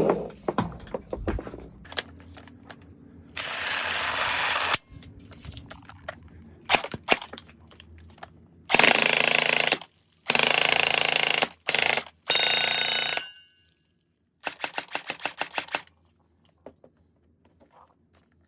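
Electric gel ball blaster with a metal-geared gearbox (CYMA JD100-2) firing in several full-auto bursts of about a second each, with small clicks between bursts. The last burst has a clear rapid rattle of about ten shots a second.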